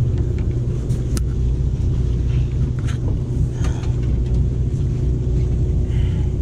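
Sportfishing boat's engine running with a steady low rumble and a faint steady hum, with a few light clicks about a second in and near three seconds.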